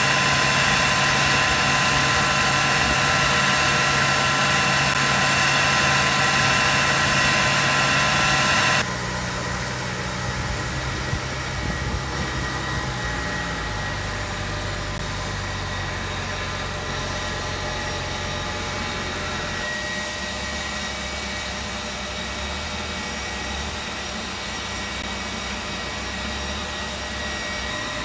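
Steady aircraft engine noise on a ship's flight deck, a low hum under a high whine. It drops suddenly in loudness about nine seconds in, and the lower hum shifts pitch a few times after that.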